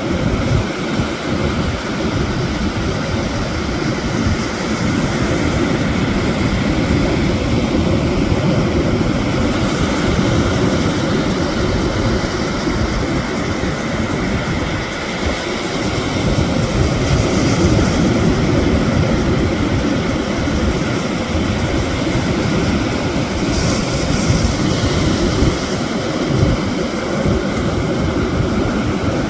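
Sea surf washing over stones, mixed with wind: a steady rushing noise with a restless low rumble and no breaks.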